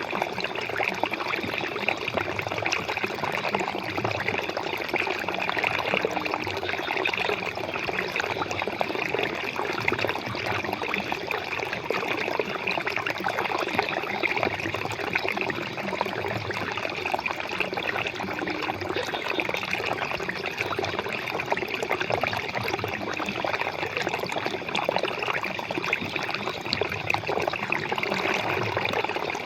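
Flowing water: a steady, unbroken trickle and splash.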